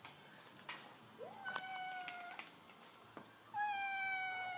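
A cat yowling twice, each a drawn-out call held for about a second. The first scoops up into its pitch, and the second, louder one comes near the end.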